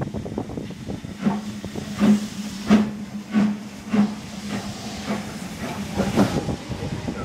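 Steam locomotive chuffing slowly, about one and a half exhaust beats a second from about a second in, over a steady hiss of steam.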